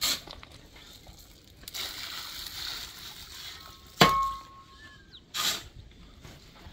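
Steel shovel scraping and scooping wet cement mix in a metal wheelbarrow. About four seconds in comes a sharp clang as the blade strikes the wheelbarrow's steel tray, ringing briefly, and another scrape follows a second later.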